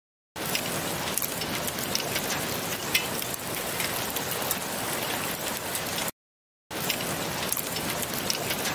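Freezing rain falling: a steady hiss of rain with scattered sharp ticks of drops striking. It breaks off for about half a second near six seconds in, then resumes.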